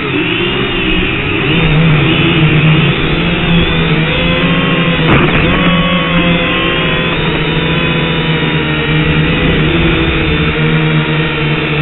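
Small drone's electric motors and propellers whining, heard from its onboard camera, the pitch wavering up and down as the throttle changes. There is a brief knock about five seconds in.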